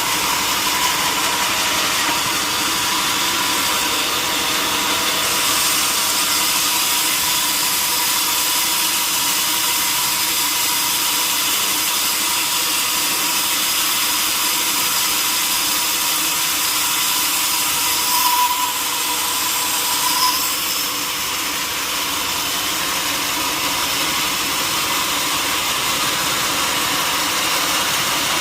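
Power saw running steadily at sawmill machinery pitch, with two brief high squeals about eighteen and twenty seconds in.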